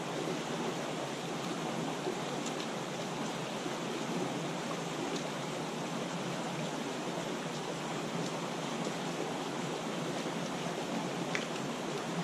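Steady rushing of a creek's flowing water, with a few faint ticks scattered through it.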